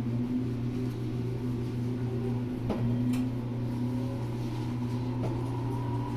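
JR 415 series 1500-subseries electric train car MoHa 414-1521 making its jet-like sound, a steady hum with whining tones that resembles an unrenovated 811 series thyristor-controlled train, which the uploader takes as abnormal. There are two faint knocks, and near the end the tones begin to climb.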